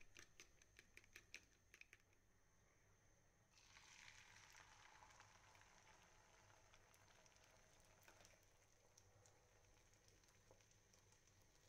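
Faint sound of a fork beating egg mixture in a bowl: quick clicks, about four a second, for the first two seconds. About three and a half seconds in, the egg mix goes into the hot frying pan and sizzles faintly, easing off gradually.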